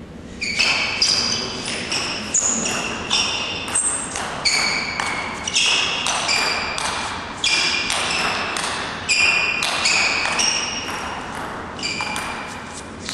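Table tennis ball in a long rally: sharp clicks of the ball off the bats and the table, about two to three a second, each ringing briefly. The rally starts about half a second in and dies away near the end.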